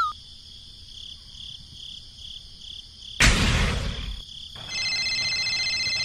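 Cartoon soundtrack effects: faint cricket chirps pulsing about three times a second, a loud noisy burst about three seconds in lasting about a second, then a steady electronic phone ring tone of several held pitches for about two seconds near the end.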